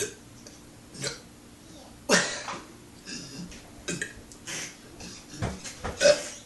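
A man belching repeatedly: a series of short separate burps, the loudest about two seconds in and another near the end.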